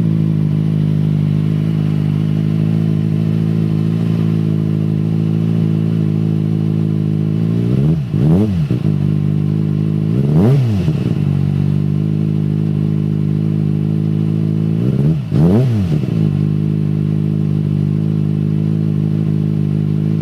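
2008 Kawasaki ZX-6R inline-four engine idling steadily, with three quick throttle blips: two close together about a third of the way in and one more past the middle.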